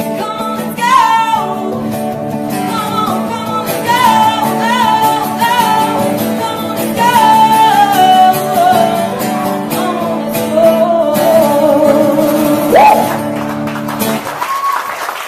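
A woman singing live with a man's acoustic guitar accompaniment. Her voice wavers through the phrases and slides sharply upward near the end. The guitar then stops and the song finishes, with clapping starting just before the end.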